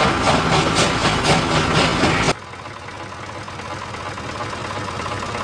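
Rhythmic chugging of a steam train, about three beats a second, that cuts off abruptly a little over two seconds in. It leaves a quieter, steady engine rumble that slowly grows louder.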